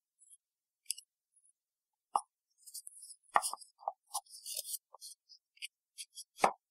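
Handling noise of a small cardboard box and its foam insert being lifted out and set down: scattered small clicks, taps and scratchy rustles, with a few soft knocks, the firmest about a third and again near the end.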